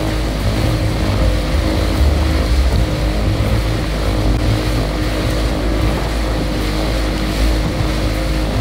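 Mercury 135 Optimax two-stroke outboard running at a steady cruising speed, a constant drone under wind buffeting the microphone and water rushing past the hull.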